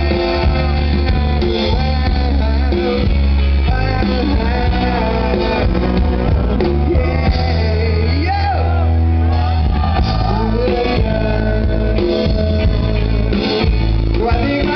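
Live band playing through the stage PA with a man singing into a microphone, the bass heavy and loud.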